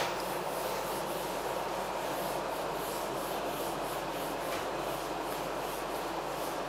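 Whiteboard duster rubbing over a whiteboard in quick repeated strokes, wiping off marker writing, over a steady background hiss.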